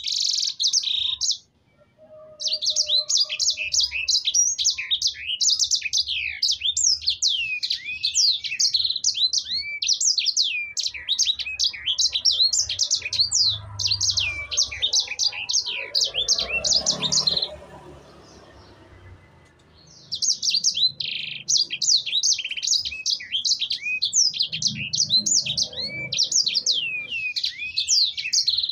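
Sanger (yellow-fronted canary) singing a long, fast twittering song of quick chirps and pitch glides. It pauses for about two seconds just past the middle, then carries on.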